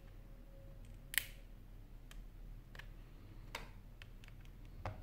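About four sharp clicks of a small tool against a Sony Z3 Compact's case, the loudest about a second in, over a faint steady hum.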